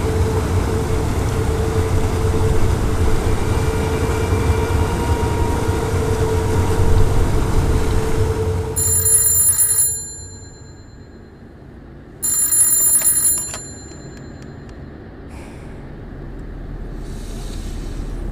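A loud, steady noise with a low held hum that cuts off about ten seconds in. A telephone rings twice, each ring about a second long, with a pause of about three seconds between them.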